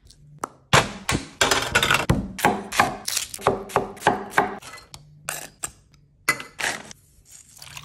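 Chef's knife chopping onion on a wooden chopping board: a quick, uneven series of sharp knocks, thinning out to a few separate knocks near the end.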